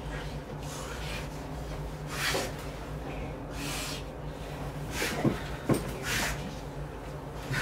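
Dog snorting and snuffling in short breathy bursts, about four over several seconds, with bedding rustling under it and two sharp clicks a little after five seconds in, over a faint steady low hum.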